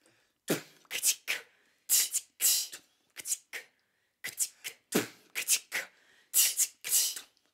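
A sparse, uneven string of short, sharp percussive hits, mostly hissy with some deeper thuds, at about two to four a second. They start about half a second in after silence and sound like mouth percussion.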